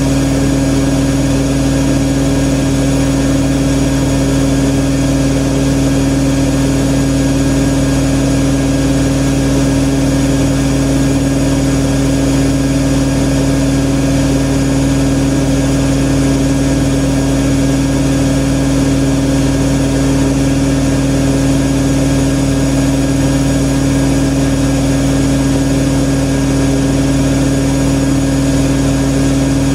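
IKEA RENLIG IWM60 washing machine spinning at a steady high speed, a loud constant motor hum and whine with the drum rushing.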